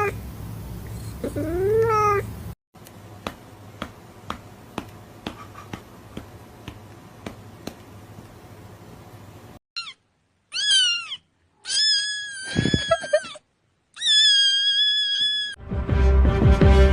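Cat meowing: one drawn-out meow that rises and falls, then a stretch of soft, regular clicking at a little over two a second, then a string of short, high-pitched meows separated by abrupt silences.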